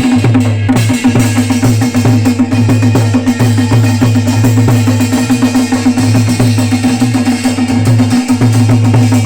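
Drums beaten in a fast, unbroken rhythm over a steady low hum.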